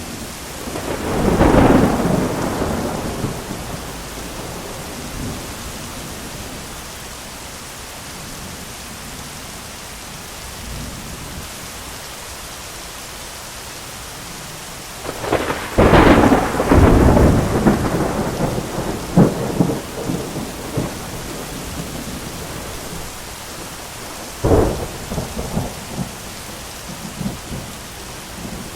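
Steady heavy rain with thunder: a rumble a second or two in, a long loud crackling peal from about halfway, a sharp crack a few seconds later, and another peal starting at the end.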